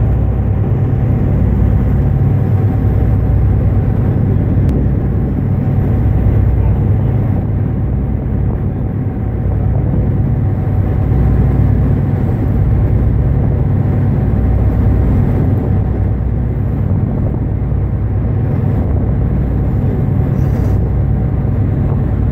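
A boat's engine running steadily, a low rumble with a faint steady tone above it, mixed with the rush of wind and water.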